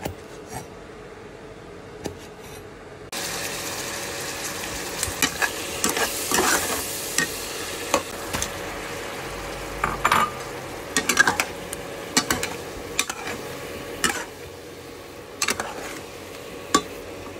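Meat and pineapple sizzling in a hot oiled wok, starting about three seconds in, while a metal spatula stirs and tosses the food, knocking and scraping against the pan again and again.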